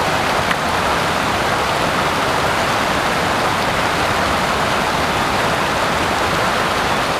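Steady rain falling, an even hiss of drops with no change in level.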